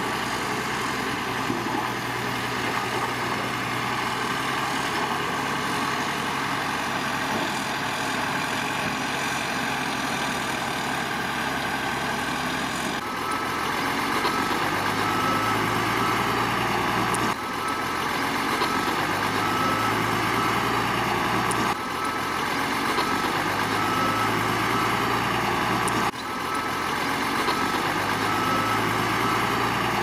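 Heavy diesel engine of earthmoving machinery running steadily. About halfway through, the sound changes abruptly, and it keeps changing roughly every four seconds after that.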